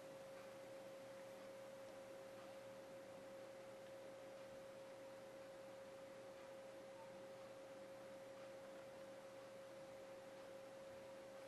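Near silence: room tone with a faint, steady, unchanging hum.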